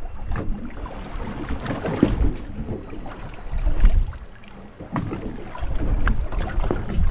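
Wind buffeting the microphone and water lapping against a small fishing boat's hull, with scattered light knocks and clicks.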